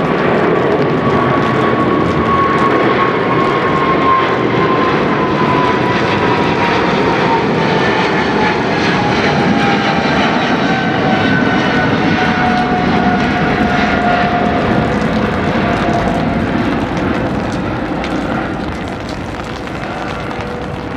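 DHL Boeing 777F freighter's twin GE90 turbofans at takeoff thrust during the climb-out: a loud jet roar with a whine that slowly drops in pitch as the aircraft passes overhead and pulls away. The roar fades a little near the end.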